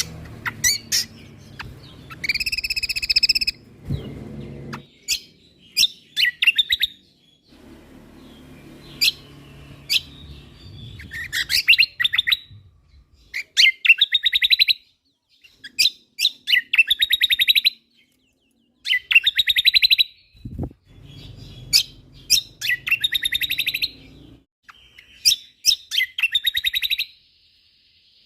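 Kecial kombok (cucak kombo) singing in repeated bursts: sharp, high single notes followed by fast rattling trills, one phrase every couple of seconds. A faint low rumble sits underneath at times.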